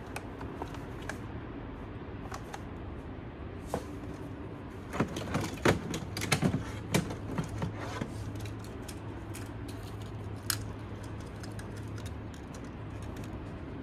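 Clicks and clatter of small objects being handled and rummaged through, with a flurry of knocks and rattles about five to seven seconds in, over a steady low hum.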